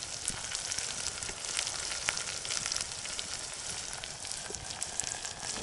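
Food frying, a steady sizzle with fine crackles running through it.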